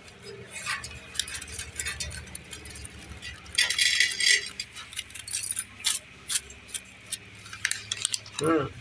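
A plastic packet of black salt crinkling and rustling as it is opened and shaken over a plate, in a run of small clicks with a louder burst of crinkling about four seconds in.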